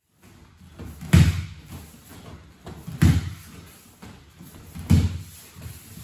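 Three heavy thuds on a judo tatami about two seconds apart, with quieter shuffling of bare feet and rustling judogi between them: bodies or feet landing on the mat during ko uchi gari practice.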